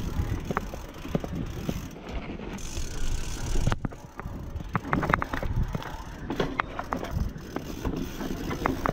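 Mountain bike rattling and clattering down a rough, rutted dirt trail: frame and drivetrain knocking over bumps, with tyres rumbling on dirt.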